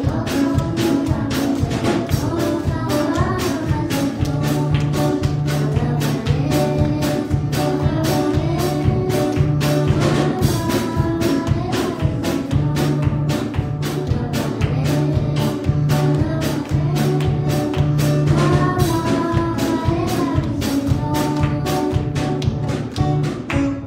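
Music with a fast, steady drum beat and a repeating bass line.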